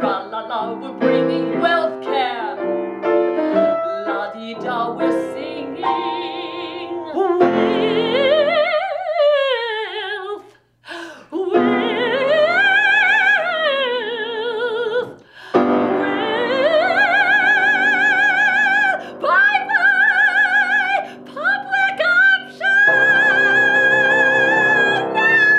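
A woman singing in an operatic style over piano accompaniment. Sweeping falling and arching glides give way in the second half to long, high held notes with wide vibrato, broken by a brief pause near the ten-second mark.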